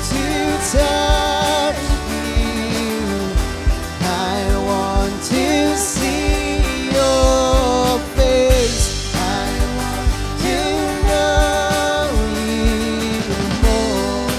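Live church worship band playing: steady drum hits under held, gliding melodic lines, with some sung voice in the mix.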